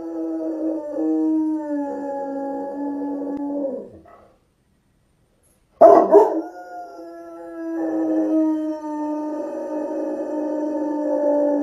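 A dog howling: one long howl stops about four seconds in. After a short gap a loud bark opens a second long howl that carries on.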